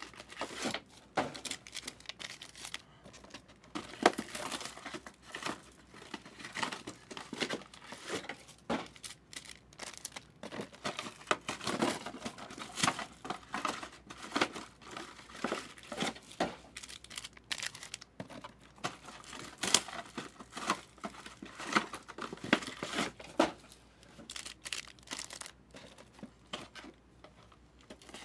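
Foil wrappers of Optic NFL trading-card packs being torn open and crinkled by hand: a steady run of irregular crackling and tearing.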